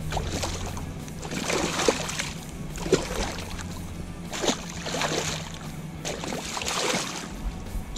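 A hooked lingcod thrashing at the water's surface beside a kayak, splashing in about five separate bursts.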